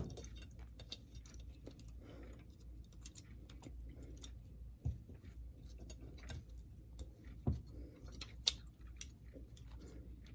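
Small clicks, taps and scrapes of hand tools on the metal parts of a model train locomotive being taken apart, with a few sharper knocks about halfway through and twice more near the end.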